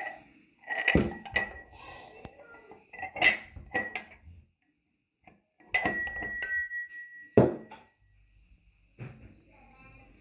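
Stainless steel pestle and mortar clinking and knocking, with about half a dozen sharp metallic strikes. One strike about six seconds in rings on briefly.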